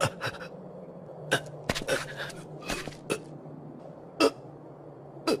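Cartoon soundtrack gone quiet: a faint steady low hum with a scatter of short, sharp sounds, a little under two a second.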